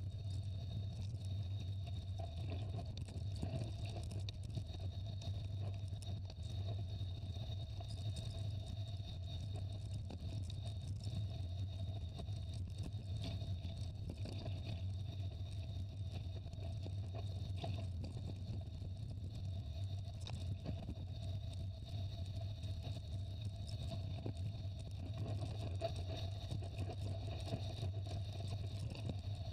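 Steady low rumble of a bicycle rolling downhill on a gravel trail, wind buffeting the microphone, with scattered light knocks and rattles from bumps.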